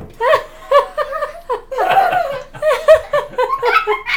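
Laughter: a quick run of short, high-pitched giggles, about three to four a second.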